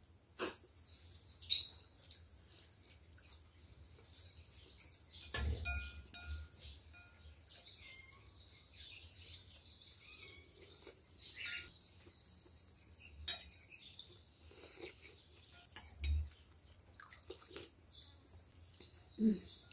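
Small birds chirping steadily in the background, with a few sharp clinks of cutlery against a bowl and two dull thumps during a meal.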